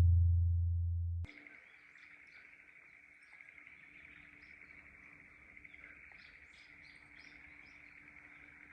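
A deep booming hit rings out and fades, then cuts off suddenly about a second in. After it comes quiet outdoor ambience: birds chirping over a steady high drone.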